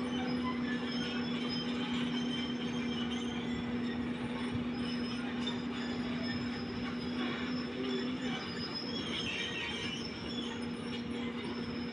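Caterpillar tracked excavator travelling on pavement: its diesel engine runs with a steady hum while the steel tracks grind and squeak.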